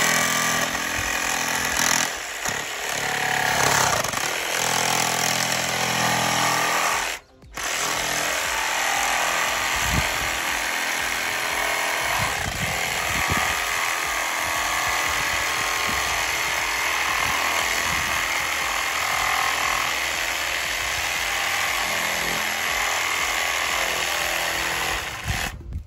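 Cordless jigsaw sawing through 3-inch PVC pipe, running continuously as the blade cuts across the pipe. The saw cuts out for a moment about seven seconds in, then runs on.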